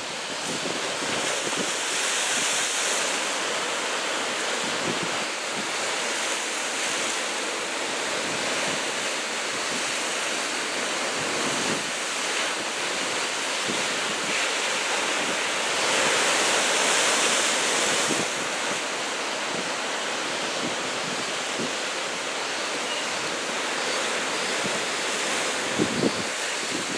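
Large typhoon-swell surf breaking on the shore: a steady wash of surf that grows louder twice as sets break, mixed with wind buffeting the microphone.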